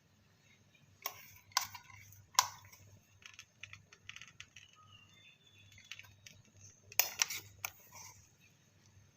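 Small hard clicks and taps of kitchen handling at the stove: three sharp clicks in the first few seconds and a quick cluster near the end, over a faint steady hum.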